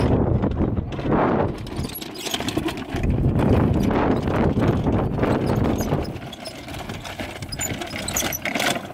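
Wind buffeting the microphone, then wooden-sided pull wagons rattling and knocking as they are dragged over rutted dirt and grass, a run of irregular clattering knocks.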